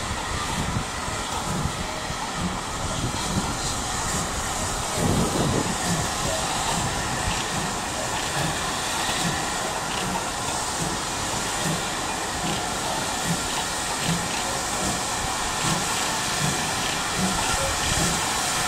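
Steam locomotive running, with a steady hiss of steam over an even low beat of about two a second, and a brief louder surge about five seconds in.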